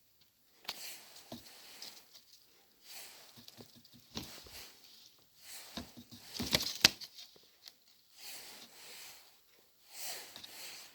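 A cat moving about in and against a fabric cat cave: irregular rustling and scratching with scattered sharp clicks, in short bursts with brief pauses, loudest about seven seconds in.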